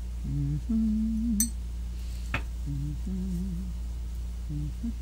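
A woman humming a short wavering tune in a few brief phrases, over a steady low hum. A sharp click comes a little over two seconds in.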